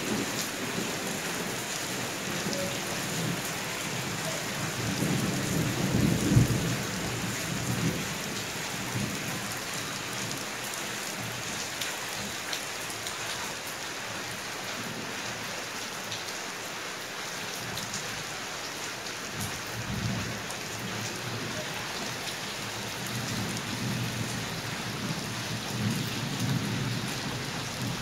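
Steady rain falling on terracotta clay pots and a wet stone floor, splashing into the water pooled in the pots, while thunder rumbles. The loudest rumble comes about six seconds in, with fainter ones around twenty seconds and again near the end.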